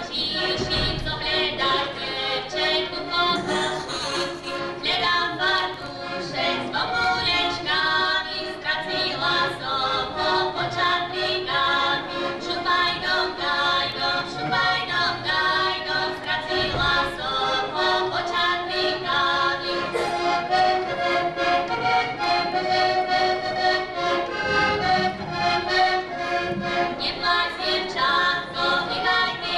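A heligónka, a Slovak diatonic button accordion, plays a lively folk tune while women's voices sing along with it, without a break.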